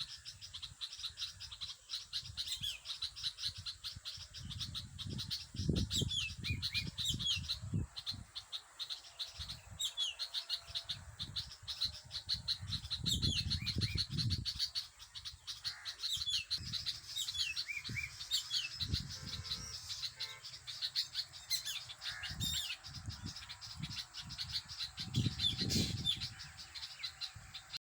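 Birds chirping, with repeated short falling calls, over a dense, rapid pulsing chorus. Irregular low rumbles come and go, loudest a few seconds in, around the middle and near the end.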